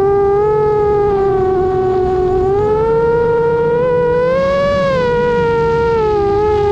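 FPV quadcopter's electric motors and propellers whining with throttle, the pitch climbing gently and then easing back down near the end.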